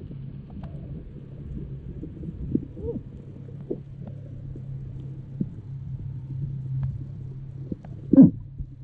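Muffled underwater sound picked up by an action camera in its waterproof housing: a steady low hum with scattered short pops and gurgles, the loudest one near the end.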